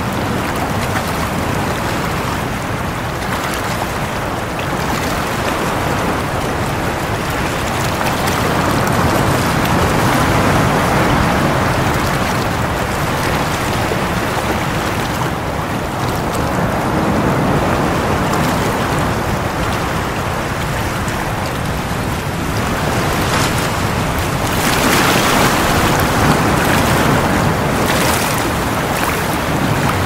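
Sea waves breaking and washing over a rocky shore: a continuous rush of surf that swells louder every few seconds as each wave comes in.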